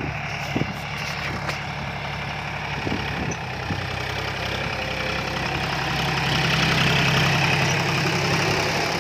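John Deere 5038 D tractor's three-cylinder diesel engine running steadily as it pulls a cultivator through the soil, growing louder for a couple of seconds about six seconds in.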